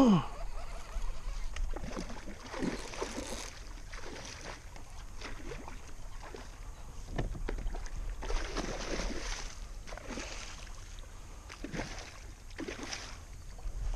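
Water swishing and splashing around a fishing kayak, in soft irregular strokes every second or two. A short falling squeak comes at the very start.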